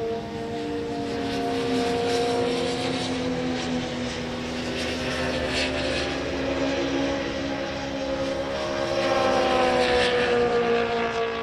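Several racing motorcycle engines running hard around the circuit, heard as a steady drone of overlapping engine notes whose pitch slowly rises and falls. A few brief crackles stand out, one about halfway through and one near the end.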